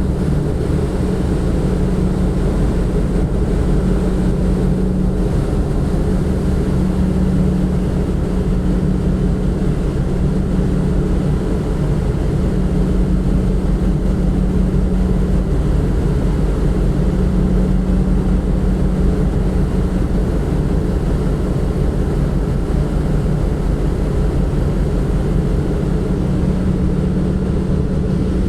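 Steady low drone of a ship's engine with a constant hum, running unchanged throughout, with wind on the microphone.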